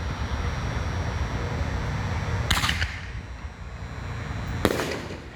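Consumer canister firework shell fired from its mortar tube: a sharp launch about two and a half seconds in, then the shell bursting overhead about two seconds later.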